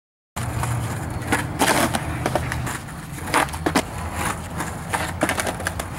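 Skateboard wheels rolling over brick pavers with a steady rumble, starting suddenly about half a second in, broken by several sharp clacks of the board hitting and grinding a concrete ledge.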